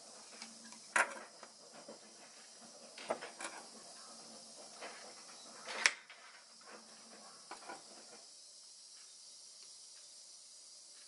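Light knocks and taps of a plastic bowl, container and food being handled on a countertop: a sharp one about a second in, a couple around three seconds, the loudest just before six seconds, then a few softer ticks, over a faint steady hiss.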